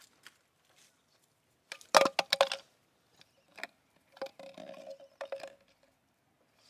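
Plastic jar knocking and scraping on concrete and gravel as a gray langur handles it. A quick cluster of sharp knocks comes about two seconds in, then scattered taps and a short scraping rattle.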